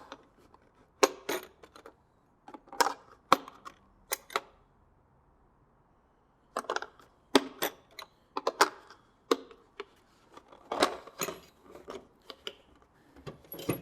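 Metal hand tools and sockets clinking against each other in a steel tool box drawer as they are handled: a string of short, sharp clinks with a pause of about two seconds midway.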